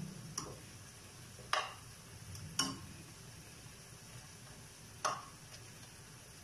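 Metal tongs clacking against a frying pan as pieces of pork belly are turned, four sharp clacks with the loudest about a second and a half in, over a faint sizzle of the pork frying.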